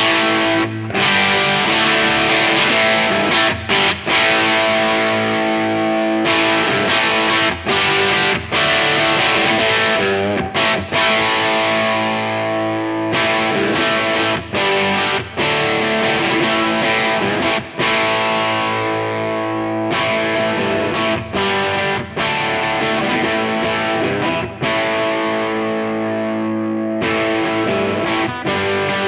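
Electric guitar played through a NUX 63 Diamond overdrive pedal with a moderate crunch, strumming chords with short breaks between them. The top end is progressively rolled off as the pedal's cut control is turned up, the tone growing duller: quite an aggressive roll-off.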